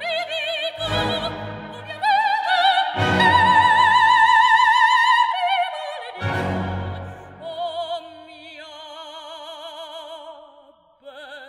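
Operatic mezzo-soprano singing with a wide vibrato over a full orchestra, which strikes loud, heavy chords about three times. In the last few seconds the passage turns quieter, with softer held notes.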